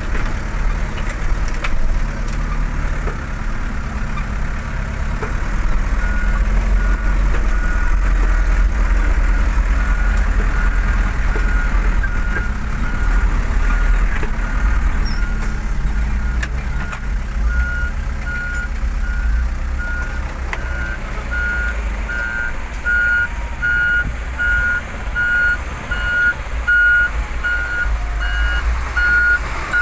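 Heavy truck diesel engine running with a steady low rumble. From about six seconds in, a reversing alarm beeps in a steady repeating pattern, growing louder in the second half.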